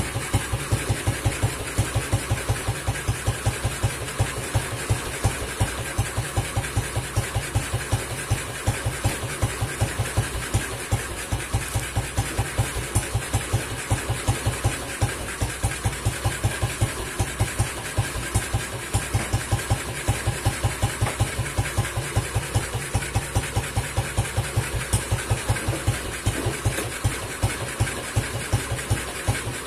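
Vintage BSA single-cylinder motorcycle engine idling with a slow, even beat of exhaust pulses, roughly three to four a second.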